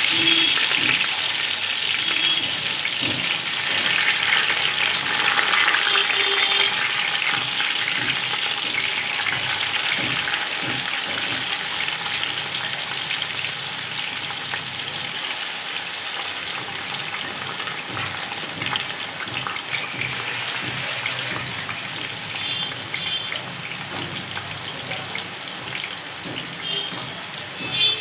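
Freshly washed basmati rice sizzling and crackling in hot oil with fried onions in a steel pot, the sizzle slowly dying down.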